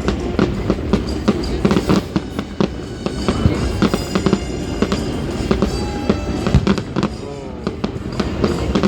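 Fireworks display: a rapid run of bangs and crackling from aerial fireworks going off, with music playing underneath.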